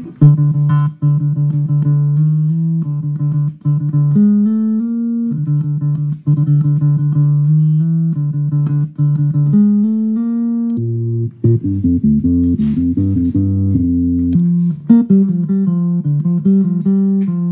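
Electric bass played through a DOD FX35 Octoplus octave pedal set with its dry signal turned off, so only the effect's octave signal sounds. It plays a line of held plucked notes, with quicker note changes in the second half.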